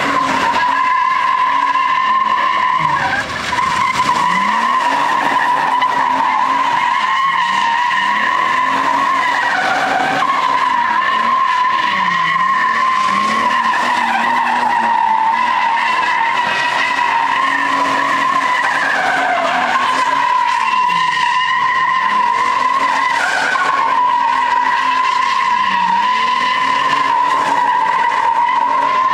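Toyota Tacoma X-Runner's V6 held at high revs while the rear tyres squeal without a break through continuous donuts. The engine note dips and climbs back every few seconds as the throttle is worked round each circle.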